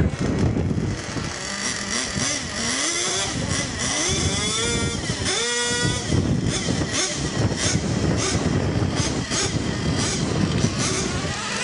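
Small engine of a radio-controlled scale kart revving up and down as it laps, its pitch rising and falling through the corners and holding one steady high note for a moment near the middle.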